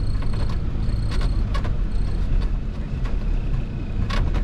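Suzuki 4x4's engine running at steady low revs, heard from inside the cabin, with short knocks and rattles as it drives slowly over rough, muddy ground. A thin, high, on-and-off tone sounds over it during the first couple of seconds.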